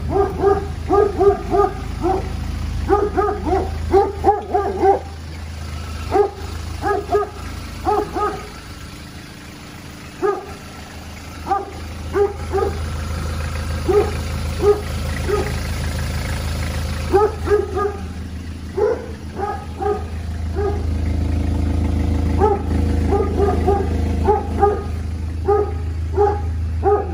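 A dog barking repeatedly in clusters, with a lull about ten seconds in, over the steady idle of a Toyota Land Cruiser Prado J90's 1KZ-TE 3.0-litre four-cylinder turbo-diesel, warming up after a cold start.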